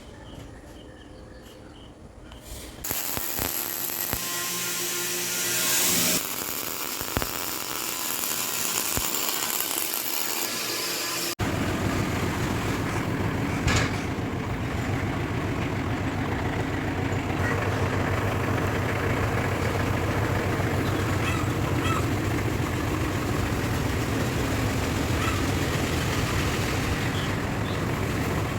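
Electric arc welding laying hard-facing weld on a steel excavator bucket: a steady crackling hiss that starts a few seconds in. Partway through the sound changes suddenly and a low steady drone joins the crackle.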